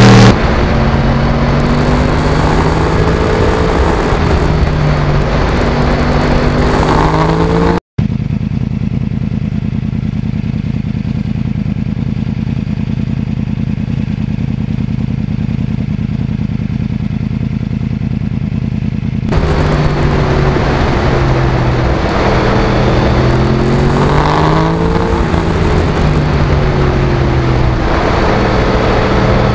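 2009 Yamaha R1's crossplane inline-four engine heard from on board while riding, its note rising and falling with throttle and gear changes. About eight seconds in the sound cuts abruptly to a steady low rumble with no changes in engine pitch for about ten seconds. Then the rising and falling engine note returns.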